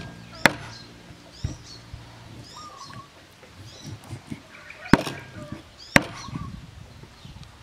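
A cleaver chopping pork on a wooden chopping board: four sharp chops, one about half a second in, a softer one a second later, and two more a second apart near the end. Birds chirp repeatedly in the background.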